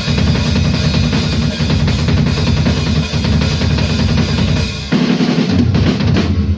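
Metal band playing: a drum kit pounds fast bass drum and snare under regular cymbal crashes. About five seconds in the drumming breaks off into a held low bass and guitar chord, which shifts once and rings on.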